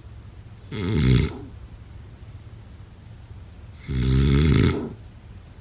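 A sleeping person snoring: two loud, rasping snores about three seconds apart, the second one longer.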